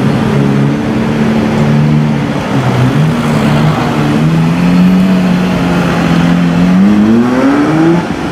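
Lamborghini Murciélago Roadster's V12 engine running at low revs as the car pulls away, then revving up in a rising climb over the last couple of seconds before the sound cuts off.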